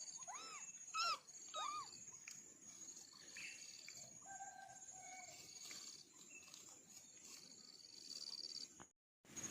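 Kittens meowing: three short, high meows in the first two seconds, each rising then falling in pitch, then fainter calls around the middle. A steady high-pitched trilling runs in the background.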